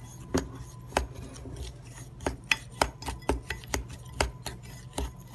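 A metal utensil stirring a brown-sugar spice blend in a glass bowl, clinking against the glass in irregular taps, about two or three a second.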